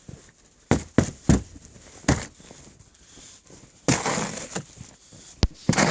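Snow being scraped and knocked off a car: a run of short scrapes and knocks, a longer sweep about four seconds in, and a few sharp clicks near the end.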